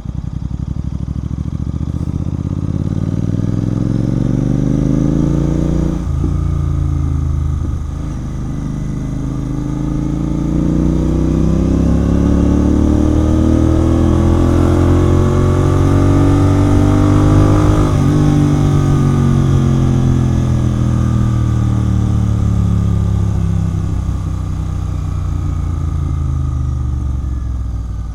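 Royal Enfield Continental GT 650's parallel-twin engine through a Red Rooster aftermarket exhaust, accelerating on the road: the pitch climbs, dips briefly at a gear change about six seconds in, then climbs again to a peak about eighteen seconds in. After that the throttle is eased off and the pitch falls steadily as the bike slows.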